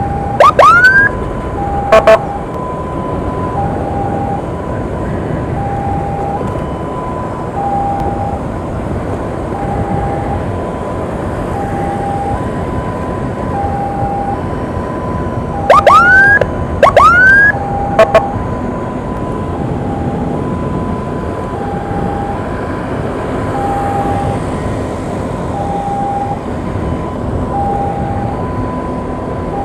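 Ambulance two-tone hi-lo siren alternating steadily between a high and a low note, with loud short rising siren whoops in two bursts, near the start and around sixteen to eighteen seconds in. Engine and road noise run underneath.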